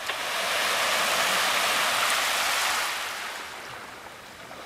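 Small waves washing up a sandy beach: a hiss that swells at the start, holds, and fades away over about three seconds.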